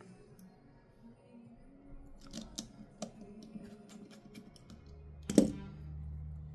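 Small scattered clicks and taps of tools and parts on a smartphone being reassembled, with one sharp, loud click a little past five seconds in. A steady low hum sets in just before that click and carries on.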